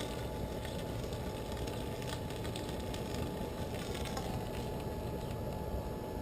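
Homemade waste-oil-fired blast furnace burning with a steady roar, a faint steady whine running under it and a few faint ticks.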